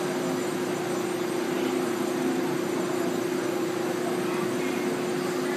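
Taiwan Railways E1000 push-pull express train standing at the platform: a steady electrical hum with one constant tone over an even rushing noise.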